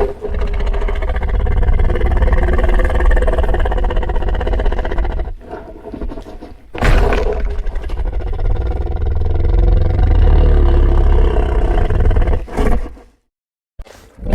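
Godzilla's roar sound effect, twice: a first long roar of about five seconds, then after a short dip a second of about six seconds, followed by a brief shorter burst near the end.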